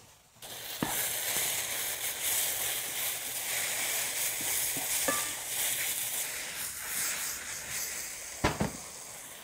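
Shredded king trumpet mushrooms frying in hot oil in a stainless steel skillet: a steady sizzle that starts about half a second in and fades near the end. A wooden spoon stirs them, knocking against the pan a few times, loudest near the end.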